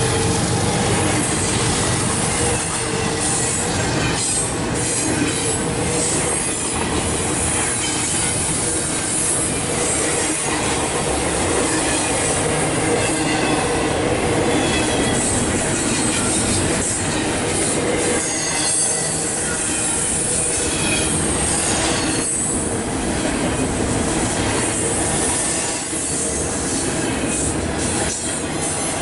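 Double-stack intermodal well cars rolling past at close range: a steady, loud rumble of steel wheels on rail, with squealing from the wheels.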